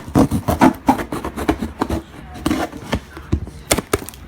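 A cardboard shipping box and its packaging being handled and opened by hand: irregular scraping and rubbing with sharp knocks, the loudest right at the start and another near the end.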